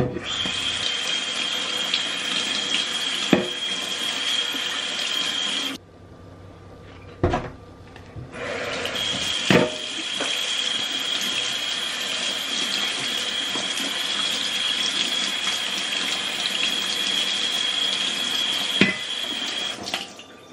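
Kitchen tap running water over a non-stick grill plate in a stainless steel sink, with a high steady whistle in the flow. The water stops for a couple of seconds about six seconds in, then runs again until just before the end, with a few short knocks as the plate is handled.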